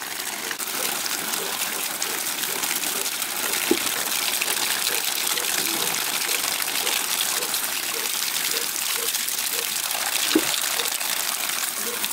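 Water from a standpipe tap pouring steadily onto a concrete slab and splashing over leafy greens as they are rinsed by hand. Two short knocks sound, about 4 and 10 seconds in.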